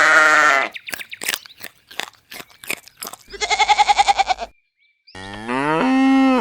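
Farm animal bleating three times: a wavering call at the start, a pulsing call in the middle, and a call that rises and then holds near the end. Short crunching clicks fill the gap after the first call.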